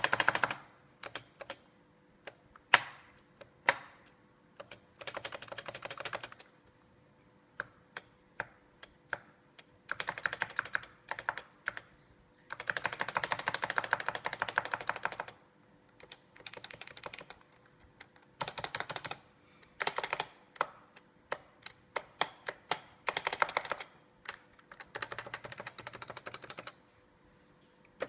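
Topre Typeheaven keyboard with 45 g Topre electrostatic capacitive rubber-dome switches being typed on: single key presses and pairs, between runs of fast typing that last a few seconds each.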